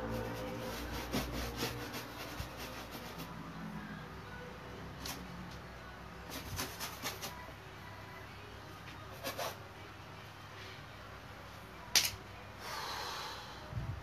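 Light clicks and rubbing from a painter handling his tools and moving about at a large canvas. There is one sharp click about twelve seconds in, then a short hiss.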